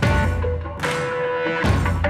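Background music: sustained held tones over a heavy low beat that falls about every second and a half, once at the start and again near the end.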